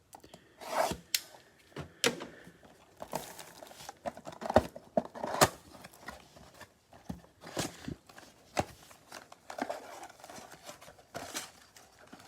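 Packaging of a trading-card mega box being torn open and handled: irregular tearing and rustling with scattered sharp clicks and taps as the packs come out.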